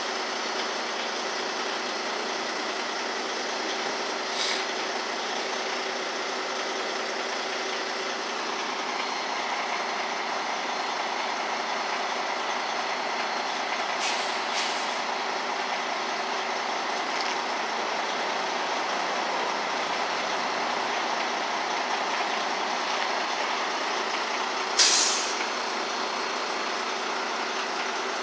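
Heavy-duty tow truck's diesel engine running steadily, with a few short hisses of compressed air from its air system: a faint one a few seconds in, a pair about halfway, and the loudest near the end.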